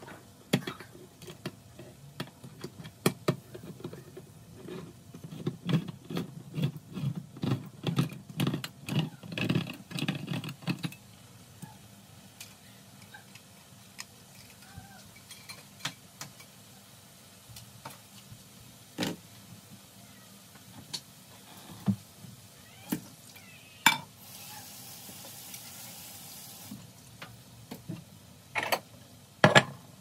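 A hand-cranked can opener is turned around the rim of a tin can for about the first eleven seconds, clicking and grinding about twice a second. After that come scattered light clicks and knocks and a short hiss about 25 seconds in. Near the end a plate is set down on the counter with a couple of loud knocks.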